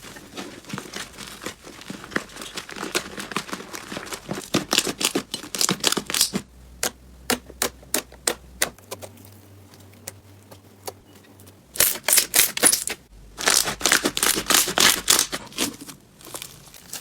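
Slime being squeezed and pressed by hand, giving a long run of crackling, popping clicks, densest in two bursts about twelve and fourteen seconds in.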